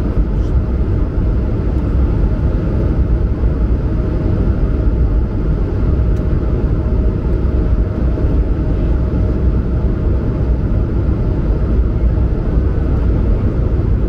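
Cabin noise of an Airbus A220-100 in its climb after takeoff: the steady, loud drone of its Pratt & Whitney PW1500G geared turbofans and the airflow, heaviest in the low rumble, with a faint steady tone above it.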